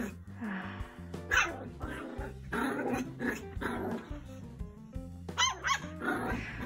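A puppy barking and growling in play during zoomies, with background music underneath.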